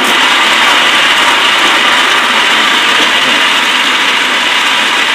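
Countertop blender switched on and running at a steady high speed, pureeing tomato gazpacho: a loud, even whir that starts abruptly.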